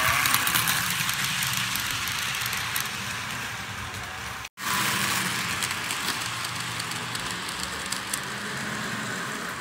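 HO scale model train running on its track: a steady rolling rattle of small wheels on the rails with a low hum underneath, cut off for a split second about four and a half seconds in before it carries on.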